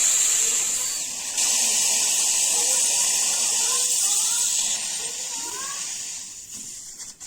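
Mini gas welding torch hissing steadily as gas flows through it, a high-pitched hiss that steps louder about a second and a half in and eases off near the end.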